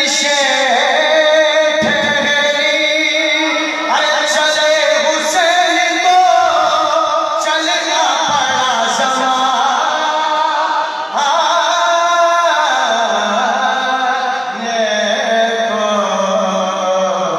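Men's voices chanting a marsiya, an Urdu elegy, together and unaccompanied, in long wavering sung phrases.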